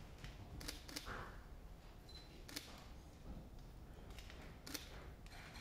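Several sharp still-camera shutter clicks, scattered a second or two apart, over the hush of a room of people standing in silence.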